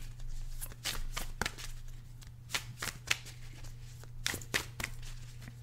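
Deck of oracle cards shuffled by hand, overhand, with a run of irregular soft slaps and flicks of card on card. A steady low electrical hum runs underneath.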